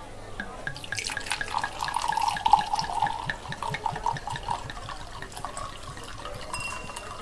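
Liquid pouring into a glass, splashing and gurgling, loudest about two and a half seconds in and then easing off.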